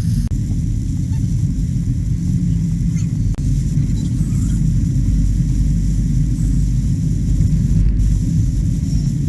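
Car on the move: a steady low road and wind rumble.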